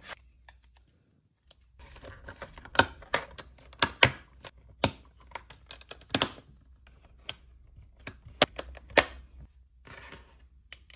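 Snap Circuits parts being fitted onto the plastic base grid: irregular sharp clicks and light clatter as the metal snap connectors are pressed together and the plastic pieces are set down.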